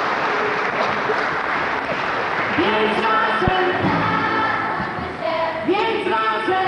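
Audience applauding, then a choir starts singing sustained notes a little over two seconds in.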